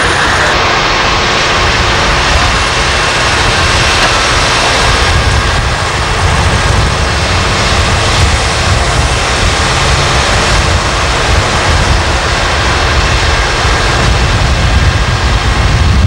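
Magirus-Deutz crane truck's diesel engine running loudly and steadily, driving the hydraulics as the crane boom is raised.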